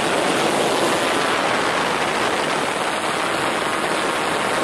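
A loud, steady rushing hiss of even noise, with no separate strokes, tones or rhythm.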